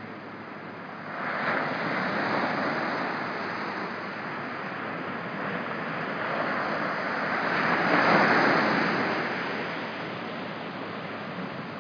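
Small knee-high ocean waves breaking and washing up the beach, a steady surf hiss that swells as one wave breaks about a second in and another, the loudest, around eight seconds in.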